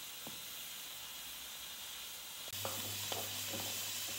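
A metal spoon stirring thick, cooking polenta in a metal pot, with a few light scrapes and knocks over a steady hiss. A low hum joins a little past halfway.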